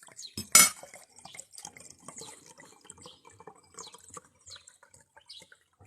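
Faint, irregular small clicks and ticks, with one louder sharp click about half a second in.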